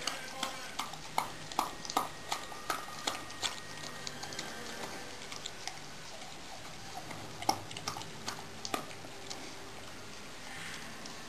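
Rhodesian Ridgeback licking yogurt from a small bowl: a run of wet lapping clicks, about three a second, as its tongue knocks the bowl. The licks thin out about halfway through, with one louder knock about seven seconds in and a few more after it.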